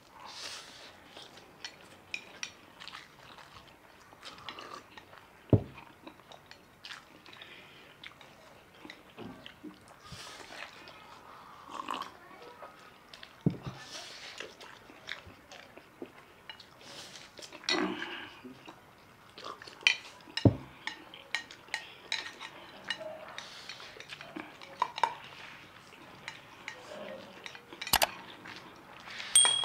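Two people slurping and chewing instant noodles, with chopsticks clicking and scraping against the plates in irregular bursts.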